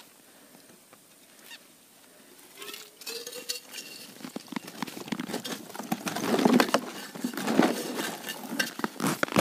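An ice scoop clearing slush and broken ice from an ice-fishing hole: crunching, scraping and splashing that starts about halfway through and grows loud. A brief rising squeak comes about three seconds in.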